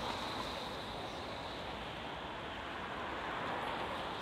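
Steady city street noise: an even hum of road traffic, with no single distinct event.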